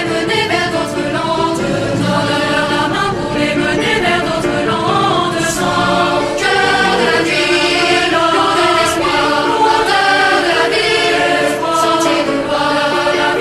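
Background music with a choir singing sustained chords.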